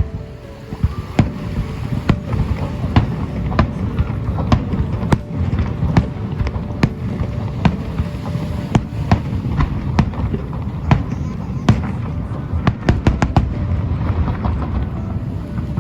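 Aerial fireworks bursting in quick succession: a steady stream of sharp bangs over a continuous low rumble, with a rapid cluster of reports about three-quarters of the way through.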